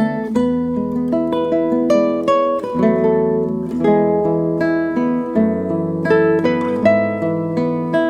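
Solo guitar improvising: a quick run of plucked single notes over held bass notes, several notes a second.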